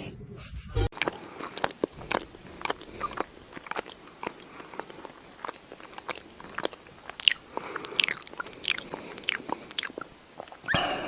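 Crunchy chewing: a pet biting and chewing something hard, with many sharp, irregular crunches.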